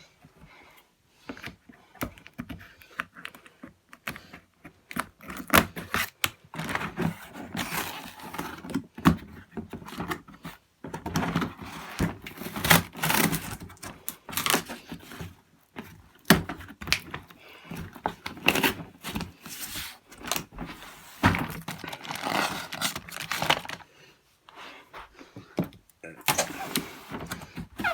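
Toy-set box being unpacked by hand: cardboard and plastic packaging rustling, with irregular clicks, knocks and rattles of plastic pieces, in bursts with short pauses.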